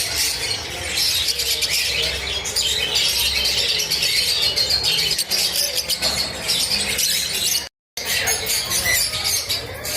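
Many small parrots chirping and chattering together in a dense, continuous din, breaking off briefly for a split second about three-quarters of the way through.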